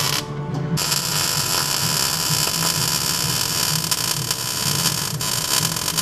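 Arc welding an O2 sensor bung onto a steel exhaust downpipe: a loud, steady hiss of the arc over a low welder hum. The arc breaks off about a quarter second in and strikes again just before the first second.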